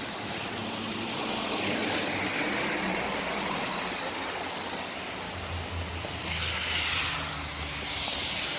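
Gusting wind buffeting the microphone, with a motor engine running steadily underneath. The engine's low hum grows stronger past the middle.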